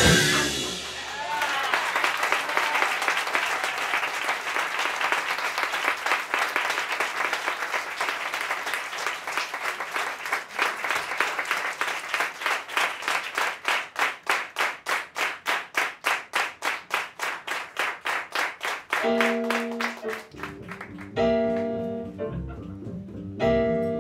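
Audience applauding a jazz big band. The clapping turns into steady clapping in time, about three claps a second, and near the end the band's horns come back in with short held chords.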